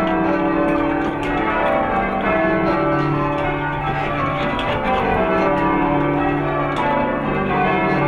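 A ring of many church tower bells rung full-circle by a band, each bell struck in turn so the strikes follow one another in a steady stream and their ringing overlaps.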